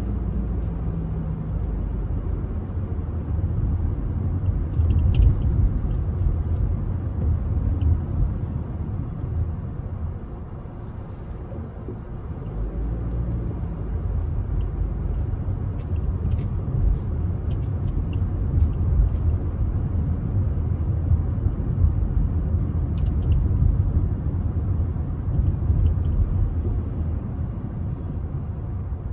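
Steady low rumble of road vehicles, easing off briefly about eleven seconds in before building again.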